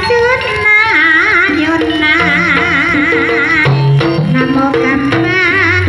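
Traditional Javanese ebeg accompaniment music: a singer with heavy wavering vibrato over a melody of held tuned notes and low hand-drum (kendang) strokes.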